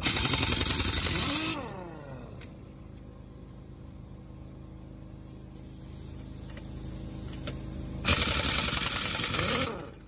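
Heavy-duty impact wrench on a long extension rattling truck wheel lug nuts loose, in two bursts of about a second and a half each, one at the start and one about eight seconds in, each winding down in pitch as the trigger is let go. A steady low hum runs underneath between the bursts.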